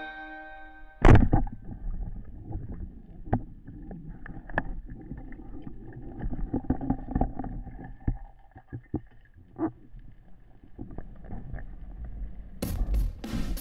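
A speargun fires underwater with one loud sharp crack about a second in, heard through the camera's underwater housing. It is followed by a low underwater rumble with scattered clicks and knocks as the diver handles the gun and shooting line, and drum music comes in near the end.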